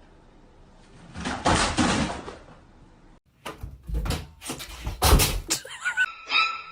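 A burst of rustling noise, then a rapid series of knocks and bangs, like something hitting a door or cupboard. Music with repeated notes starts near the end.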